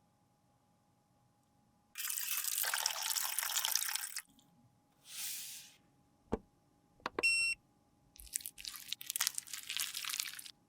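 Close-up handling of makeup: a two-second hiss, a shorter hiss, two sharp clicks with a brief high tone, then a crackly run of noise.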